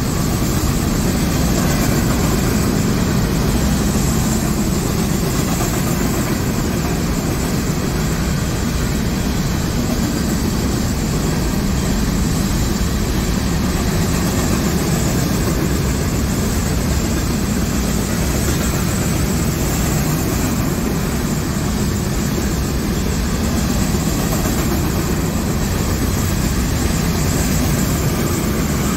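A freight train's loaded hopper cars rolling past on steel rails: a loud, steady rumble.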